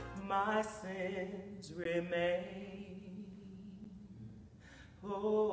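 A woman singing solo in slow, held, gliding phrases: two short phrases in the first two and a half seconds, a quieter gap, then she comes back in about five seconds in.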